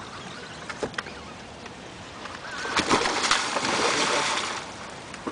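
Hooked tarpon thrashing and splashing at the water's surface beside the boat for about two seconds, starting about halfway through. Just before it, a bird chirps briefly.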